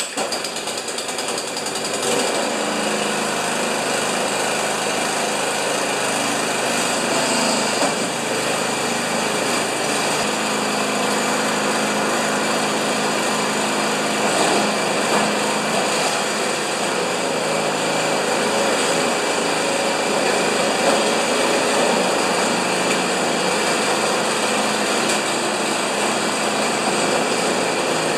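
Snowblower's Briggs & Stratton engine catching on the pull rope after priming, cold on full choke and full throttle, and then running steadily. It picks up over the first couple of seconds and then holds an even, loud running note.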